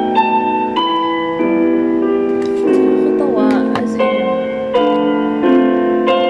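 Wall-mounted CD player playing instrumental piano music: a melody of struck, held notes changing every half second or so. It is playing a CD properly.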